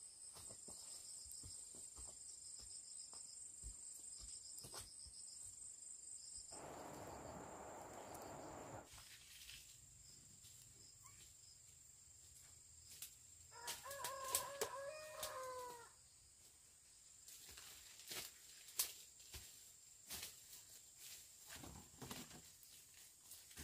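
A rooster crowing once, a single call of about two and a half seconds a little past the middle, over faint scattered clicks and a brief rushing hiss about seven seconds in.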